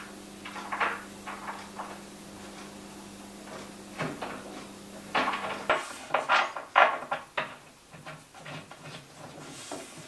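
Short wooden knocks, clicks and scrapes as the bamboo parts of an IKEA NORDKISA shelf are handled and fitted together by hand, in two bursts, the second busier.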